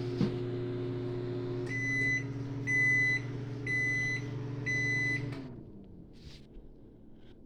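GE JES1145SH1SS microwave oven running with a steady hum. Its cycle ends about two seconds in with four high beeps about a second apart, and the hum winds down and stops about five seconds later.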